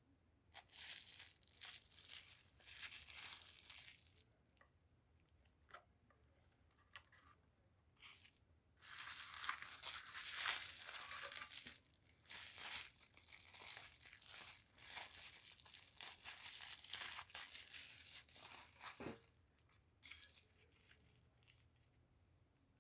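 Packaging being torn open and crinkled by hand: short bursts of tearing and rustling, then a longer busy stretch in the middle, with a sharp click near the end.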